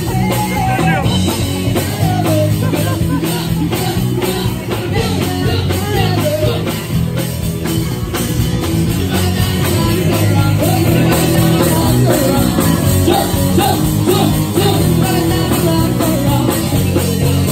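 Live rock band playing loud through a stage PA: drum kit keeping a steady beat, electric guitars and sung vocals.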